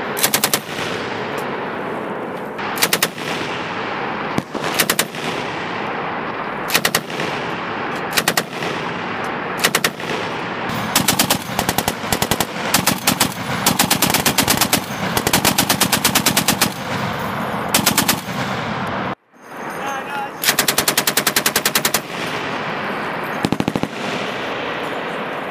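Machine guns, an M240 7.62 mm and an M2 .50-calibre Browning, firing short bursts and longer strings of rapid shots, each burst trailing off in echo. The firing cuts out abruptly for a moment about three-quarters of the way through.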